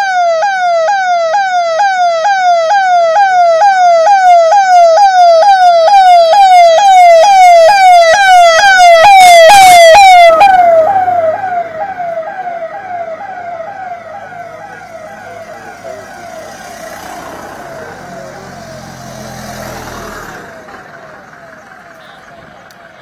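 Electronic siren on a convoy vehicle sounding a fast yelp, its pitch sweeping up and dropping about three times a second. It is very loud at first and peaks about ten seconds in, then fades away as the vehicles drive past, leaving a low rumble of passing engines.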